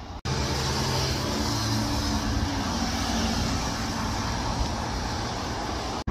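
Steady rush of heavy rain mixed with the low hum of road traffic.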